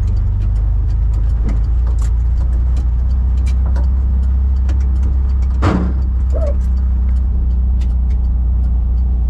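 Car engine and road noise droning steadily inside the cabin while driving, with frequent light rattles and clicks and one louder thump a little past halfway.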